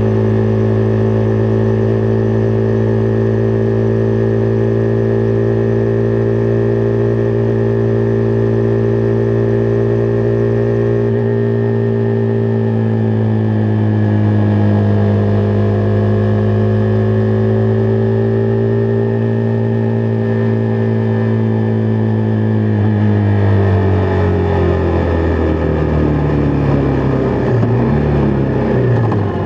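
Husqvarna Vitpilen 401's single-cylinder engine running at a steady cruising speed, its pitch holding with a slight sag midway. About two-thirds of the way through it falls away in steps as the bike slows.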